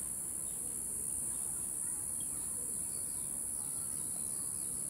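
Steady high-pitched insect drone from the surrounding trees, with a run of short falling bird chirps in the second half.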